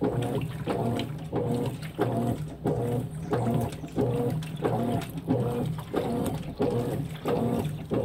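Consul 16 kg top-load washing machine agitating a load of jeans in soapy water: the drive motor hums in short strokes, about two a second, as the wash action reverses back and forth, with water sloshing.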